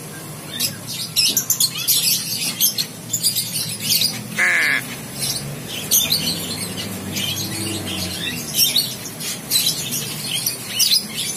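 Birds calling: quick high chirps repeated throughout, with one louder drawn-out squawk about four and a half seconds in.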